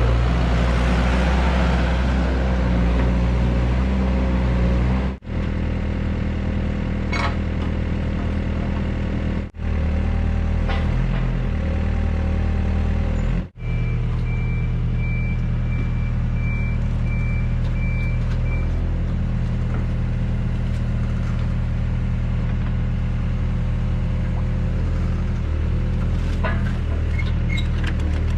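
Excavator diesel engine running steadily while digging, broken by three short drop-outs. For about five seconds in the middle a high pulsing beep sounds over it.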